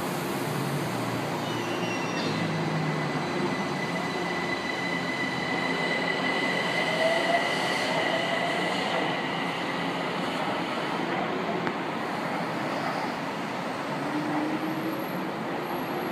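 São Paulo Metro fleet J train pulling out of the station and running off along the track. It makes a steady run of wheel-on-rail noise, with a high steady whine that is strongest in the first half.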